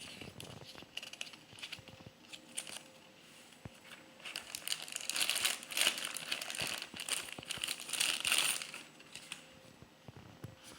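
Packaging crinkling as it is handled and pulled away during unboxing. A few light clicks and taps come first, then about four seconds in a long stretch of louder crinkling in two swells, dying down near the end.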